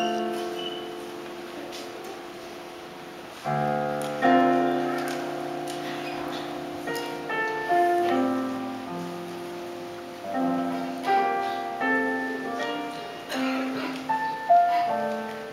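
Solo piano playing slowly. Chords are struck, then a melody of single notes moves over them, each note ringing and fading after it is played.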